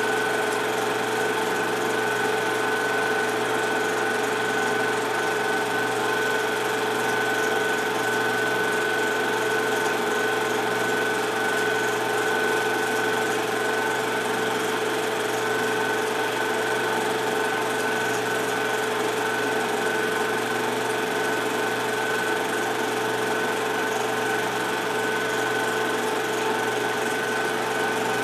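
Movie projector running: a steady mechanical whir with a constant tone, unchanging throughout. This is the sound of silent home-movie film being played back.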